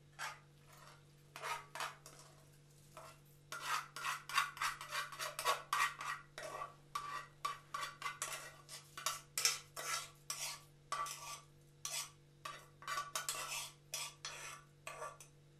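A metal cooking pot scraped and tapped with a utensil in many short strokes, a few a second, as its contents are emptied into a glass bowl.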